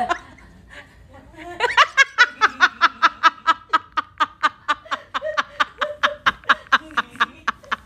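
Person laughing hard in a long run of quick, even bursts, about five a second, starting about a second and a half in.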